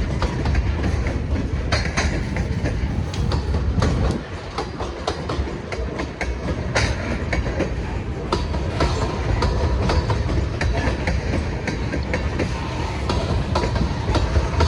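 Freight cars rolling slowly on the rails, a steady low rumble broken by frequent clicks of wheels passing over rail joints.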